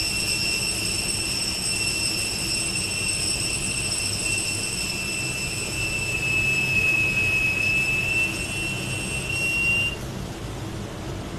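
CNC lathe running, with a steady high-pitched whine over a rumbling machine noise; the whine wavers slightly in pitch and stops abruptly about ten seconds in.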